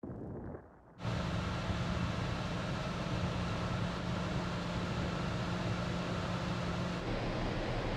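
Steady hum of a large car ferry's machinery heard on deck, with a strong rushing noise over it. The sound starts abruptly about a second in, and one low tone in the hum drops out near the end.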